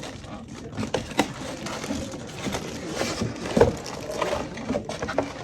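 Packaging being handled and unpacked: scattered rustling and scraping with light clicks and knocks.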